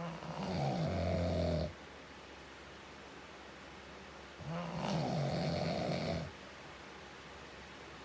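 A man snoring: two long snores about four and a half seconds apart, each lasting one and a half to two seconds, with quieter breathing between.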